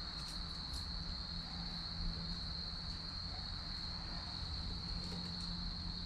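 A steady, high-pitched cricket trill with a low rumble beneath, and a few faint crackles from the burning firewood.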